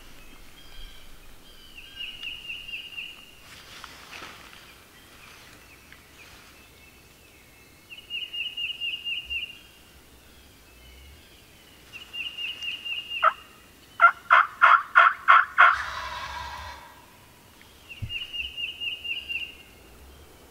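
Turkey calling: about fourteen seconds in, a loud series of about seven evenly spaced notes, followed by a brief rattling call. A songbird's short high trill repeats four times, several seconds apart.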